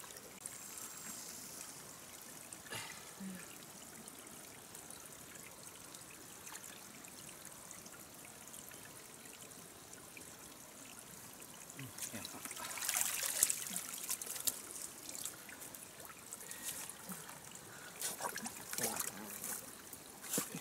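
Water trickling, faint and steady, with two stretches of splashing: one about twelve seconds in and another near the end.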